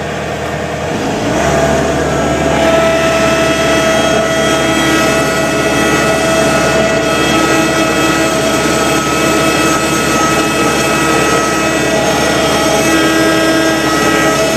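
Thomas 153 skid steer engine heard from inside the cab, revving up about a second in and then running loud and steady at high revs with a steady whine while the machine pushes snow with a front blade.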